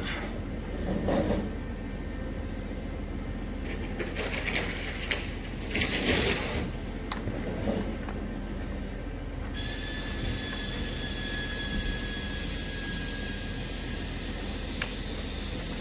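Steady machine hum with a few clattering knocks; about ten seconds in, a steady high-pitched whine with a hiss starts and runs on.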